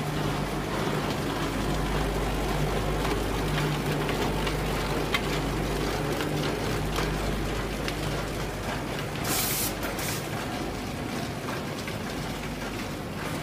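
Vertical form-fill-seal packing machine with a multi-head weigher running: a steady mechanical hum scattered with many light clicks and rattles. About two-thirds of the way in, a short hiss of air sounds twice in quick succession.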